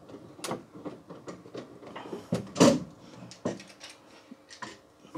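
Scattered knocks, clicks and clunks from a large projector screen being handled against timber ceiling framing, with one louder thud about two and a half seconds in.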